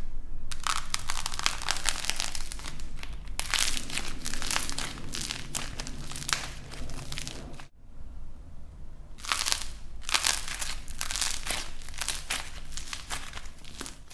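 Dried light plasticine clay crackling and crunching as it is squeezed and broken up by hand, in dense runs of small sharp cracks. The crackling stops briefly about halfway through, then starts again.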